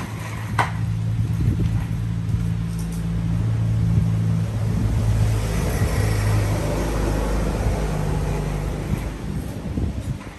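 An engine running with a steady low hum that fades out near the end, and a sharp click about half a second in.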